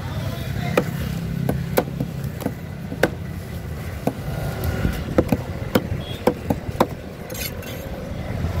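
A large curved fish knife chopping a longfin trevally into steaks on a wooden block: a string of sharp knocks, about one to two a second, closer together in the middle. A low rumble of traffic runs underneath.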